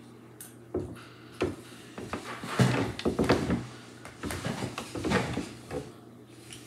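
A child eating rice: a metal spoon clicking and scraping against the bowl, with chewing, in a string of short knocks and noisy bursts that are loudest in the middle.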